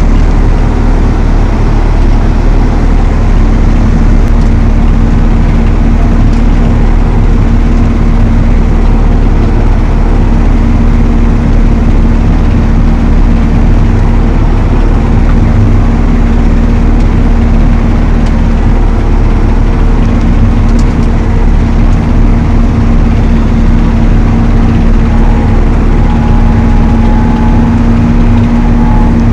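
Valtra T214 tractor engine running steadily under load while driving an Elho Tornado chain mower, a loud constant drone with a steady hum.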